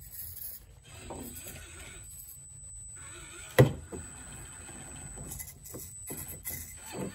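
Axial SCX24 1/24-scale RC crawler working over river rocks: faint scuffing of its tyres and chassis on stone, with one sharp knock about three and a half seconds in and a softer one near the end.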